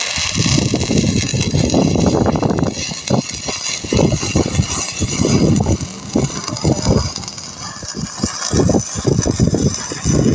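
Stick-welding arc burning along the mitred seam of a pipe elbow: struck right at the start, it keeps up a steady crackling sizzle with an irregular popping.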